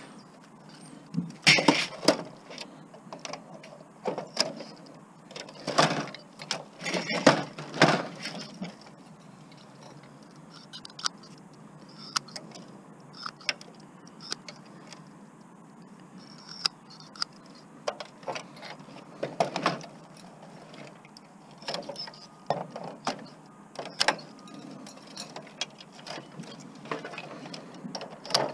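Tin snips cutting wires and metal parts rattling as they are pulled off a big-screen TV's circuit boards: irregular snips, clicks and metallic clatter, busiest in the first several seconds and sparser after.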